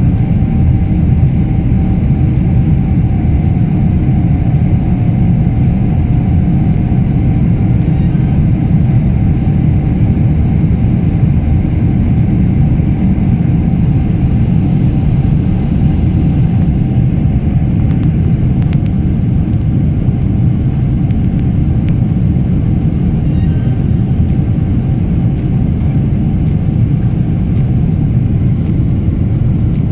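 Steady low roar of a jet airliner's engines and rushing air heard inside the cabin, with a faint higher hum that fades out about halfway through.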